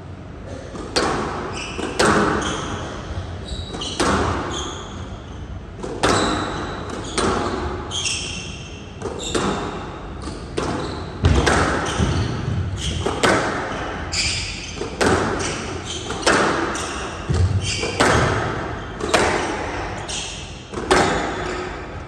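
Squash rally: rackets striking the ball and the ball hitting the walls of a glass-walled court, sharp cracks about once a second, each ringing on in the hall's echo. Short squeaks from court shoes on the floor come between the shots.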